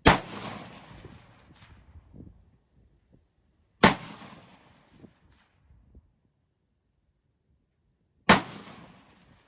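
Three single shots from a Troy P7A1 AR-15 pistol with a 7.5-inch barrel, firing 5.56 rounds, spaced about four seconds apart. Each sharp crack has a long echo trailing away.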